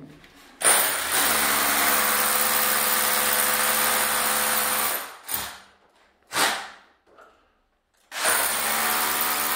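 Electric power drill running steadily at a constant pitch, then stopping about five seconds in. Two short spin-ups follow, each dying away, and the drill runs steadily again near the end.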